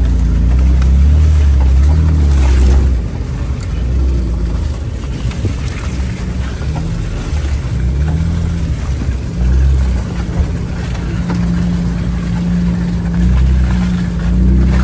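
Jeep engine working under load at low speed, its pitch rising and falling as the throttle is worked, heard from inside the vehicle; loudest in the first few seconds.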